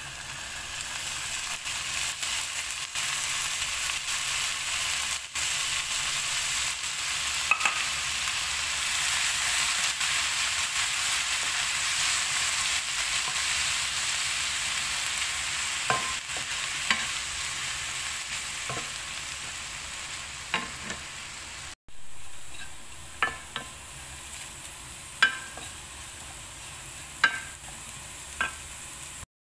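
Corned beef and onions sizzling in a nonstick frying pan while a spatula stirs them, with sharp clicks of the utensil against the pan. After a brief break about three quarters of the way in, diced potatoes sizzle more quietly in the pan as they are stirred, with several more clicks.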